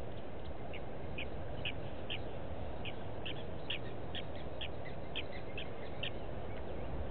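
A bird calling a series of a dozen or so short, high notes, about two a second, getting louder toward the middle and stopping about six seconds in, over a steady low background hiss.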